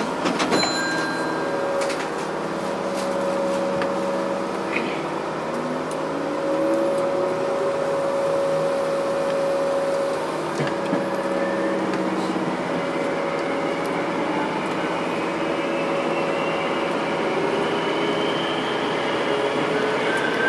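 Hankyu electric commuter train heard inside its leading car as it pulls out and gathers speed: a steady running hum and rolling noise, with whining tones from the drive that rise slowly in pitch.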